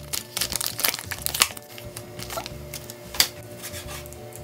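Plastic bacon packet crinkling and crackling as it is peeled open, then a few sharp clicks near the end as a knife cuts the bacon on a plastic cutting board. Soft background music runs underneath.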